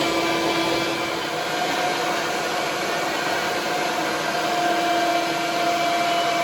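Steady whir of a small electric motor with a constant hum.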